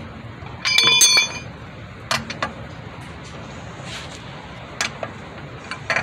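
Steel lug wrench clanking against the wheel's lug nuts as it is fitted and turned. One loud ringing metal clank comes about a second in, followed by a few lighter clicks.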